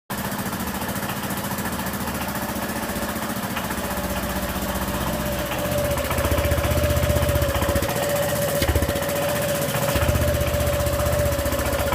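Honda PCX scooter's single-cylinder engine running with a rapid, rattly exhaust pulse: the sealing ring at the exhaust joint is missing, so exhaust compression escapes there and it sounds like something loose. The running gets slightly louder about halfway.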